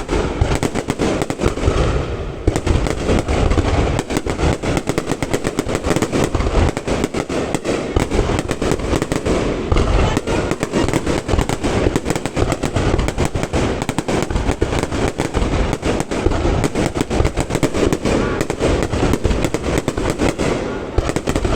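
Fireworks display at full barrage: rapid, overlapping bangs and crackles follow one another without a break.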